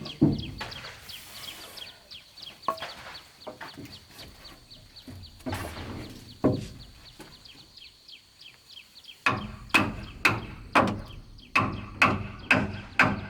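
A few scattered knocks, then from about nine seconds in a steady run of tool strikes on bamboo or wood, about two a second. Birds or chickens chirp in the background.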